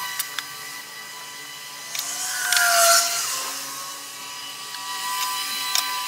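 Plastic squeeze bottle of wood glue sputtering and hissing as glue and air are forced out of its nozzle, with a short falling whistle, over a steady high hum and a few light clicks.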